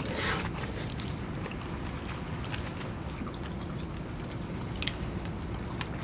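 A spoon clicking and scraping now and then against a metal camping bowl, over a steady low rumble of wind.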